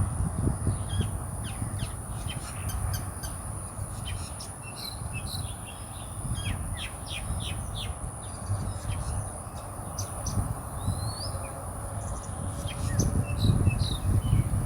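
Birds chirping and calling in many quick short notes, with one longer sliding call about ten seconds in, over a low rumbling background and a steady high-pitched whine.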